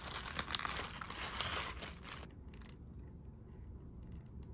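Paper wrapper crinkling and crackling as a cream-cheese bagel is torn apart by hand, stopping about two seconds in.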